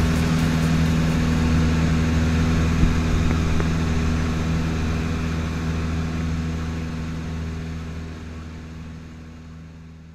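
Light single-engine training aircraft's piston engine and propeller droning steadily, heard inside the cockpit. The drone fades out gradually over the last few seconds.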